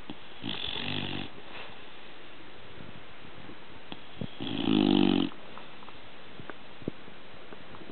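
A bulldog snoring in its sleep: two snores about four seconds apart, the second louder, each lasting about a second. The snoring is piglike, like a little sow.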